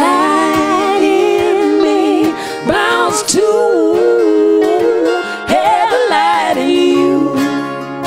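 A woman and a man singing long held notes in two-part harmony, over a strummed ukulele and acoustic guitar.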